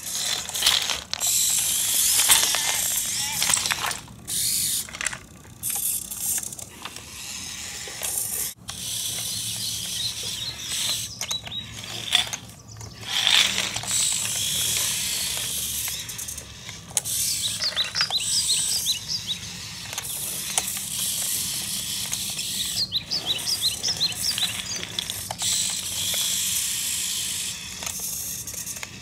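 Small electric motors and plastic gearing of a radio-controlled model tractor whirring in stop-start bursts with clicks and rattles as it drives and works its front loader arm.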